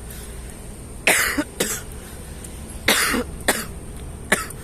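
A man coughing, five sharp coughs, the first four in two close pairs: a lingering cough after a COVID-19 infection, with a wish to keep coughing.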